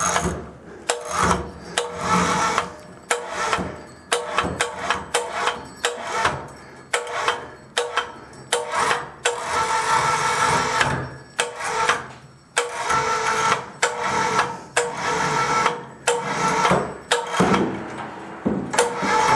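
Electric cable hoist running in short stop-start runs with a steady hum, slowly lowering an old wooden attic-stair unit on its wire rope, with repeated clicks and knocks between and during the runs.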